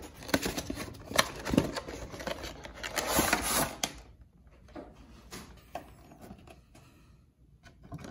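Cardboard and plastic packaging of a Pokémon TCG Celebrations collection box rustling and crinkling as the box is handled and opened. There are dense rustles and clicks for the first half, then only a few light taps.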